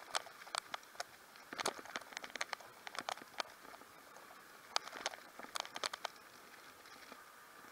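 Bicycle rattling as it rolls over a block-paved street: irregular clusters of sharp clicks and taps over a faint steady hiss, thinning out after about six seconds.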